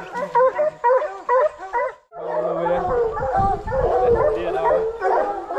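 Kenneled hounds barking in a rapid run of repeated barks. After a short break about two seconds in, a denser, overlapping chorus of barks and bawls follows, with some low thumps.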